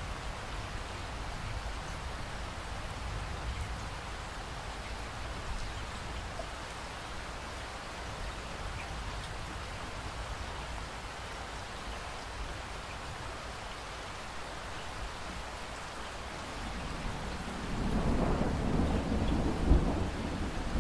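Steady rain falling. About three-quarters of the way through, a roll of thunder rumbles in and grows louder toward the end.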